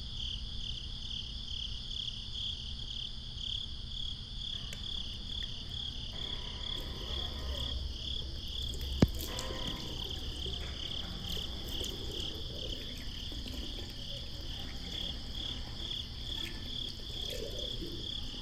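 Night chorus of calling crickets, a steady high pulsing trill, with faint splashing of water at a sink and one sharp click about nine seconds in.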